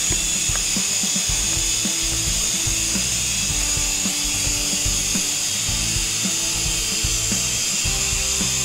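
Steady high-pitched whine of a Syma S107 micro coaxial RC helicopter's small electric motors and rotors as it hovers, over background music with bass notes and a beat.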